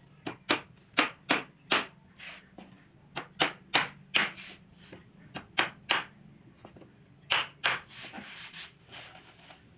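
Irregular sharp knocks on wood, about fifteen of them with uneven gaps, some much louder than others: carpentry tool strikes during door-making work.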